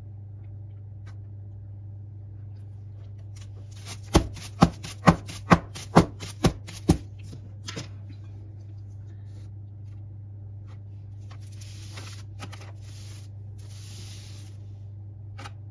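A foil-wrapped springform cake pan of batter knocked down on the countertop seven times, about two knocks a second, the usual way of bringing air bubbles out of the batter. A few seconds later comes a soft rustling of paper and foil as the pan is handled.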